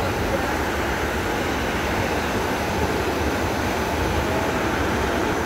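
Waterfall: a steady, heavy rush of falling water.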